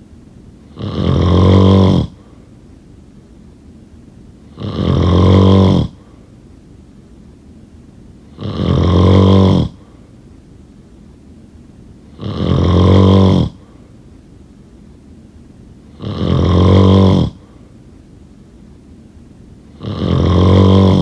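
A sleeping person snoring: six regular, low, rattly snores, each a little over a second long and about four seconds apart, with quiet breathing between them.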